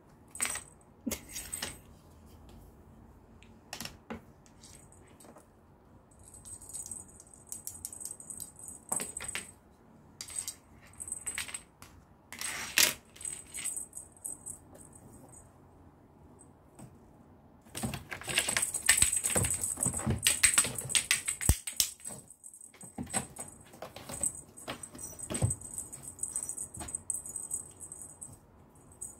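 A wand cat toy jingling and rustling, with scattered taps and clicks as a cat bats at it. The jingling comes in spells and is busiest and loudest over the last third.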